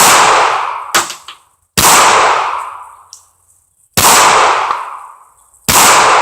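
.380 pistol being fired at a target, five shots spaced one to two seconds apart, each a sharp crack with a long echoing tail. The second report, about a second in, is shorter and sharper than the rest.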